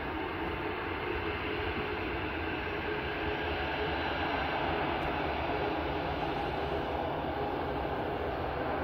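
Jet airliner engines running, a steady rushing noise that slowly grows louder.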